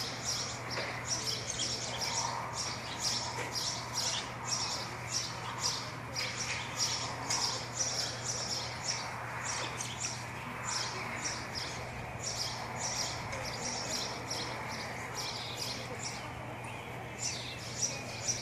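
Small birds chirping, short high chirps about twice a second, over a steady low hum.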